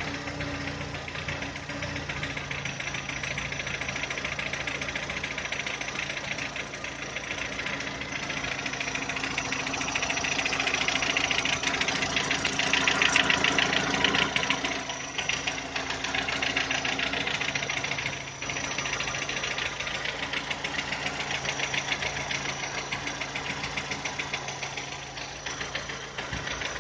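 VW 1.6 BSE four-cylinder petrol engine idling cold with a fast, even knocking over the running, a little louder midway. The knock comes at cold idle below about 1000 rpm and dies away as the engine warms; it appeared after a rebuild with new pistons, valves and hydraulic lifters and an oversize bore, and its cause is not known.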